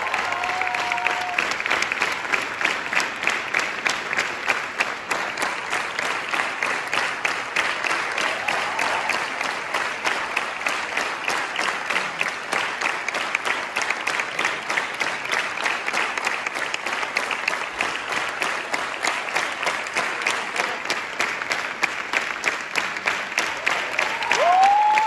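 Concert audience applauding steadily in a theatre, a dense patter of many hands clapping. A single voice calls out briefly near the end.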